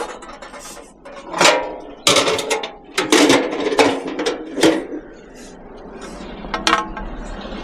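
Scrap metal pieces clanking and clattering as they are handled and dropped, several sharp knocks in the first half, then one more short knock near the end.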